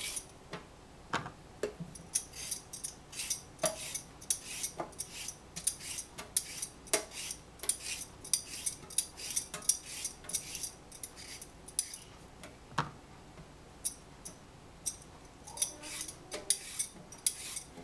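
Scattered light knocks, clicks and taps of cucumbers and herb stalks being handled in a stainless steel sink and set down on a cutting board, a few knocks ringing briefly off the steel.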